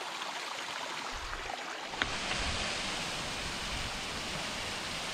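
Steady rush of flowing water from a mountain stream or waterfall. A click about two seconds in, after which the rush is a little louder and fuller.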